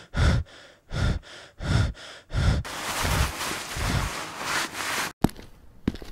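An animated character's distressed, gasping breaths, repeated about every 0.7 s, run into a longer noisy stretch that cuts off about five seconds in. Then come a couple of sharp footstep clicks as he walks away.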